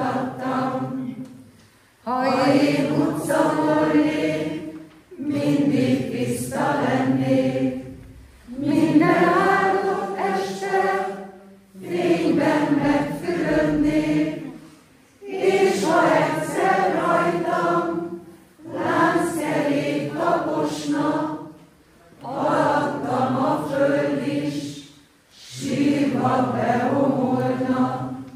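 Choir singing a cappella in phrases of about three seconds, each followed by a brief break for breath.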